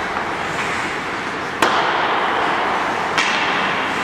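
Two sharp cracks of a hockey puck being hit, about a second and a half apart, each ringing briefly in the rink over a steady wash of rink noise.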